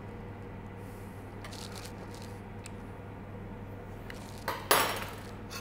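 Wire whisk stirring a thick cream sauce in a stainless steel pot: faint scraping and rattling over a steady electrical hum, with a louder brief scrape near the end.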